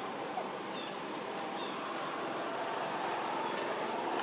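Steady outdoor background noise with a faint distant motor hum that grows a little louder near the end, and a couple of short high chirps.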